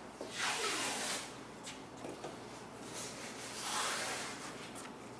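Painter's tape being pulled off the roll in two noisy strips of about a second each, one near the start and one about three and a half seconds in.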